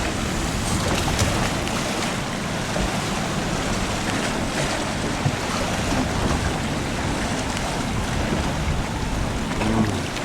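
Steady rush of wind and sea water around an open fishing boat, with wind buffeting the microphone.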